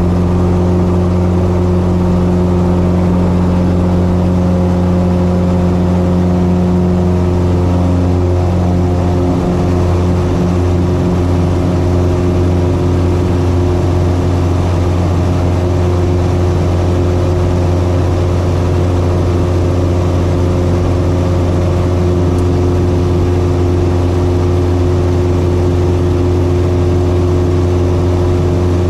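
Carbon Cub FX-3's four-cylinder piston engine and propeller running at steady power, a loud even drone that holds one pitch.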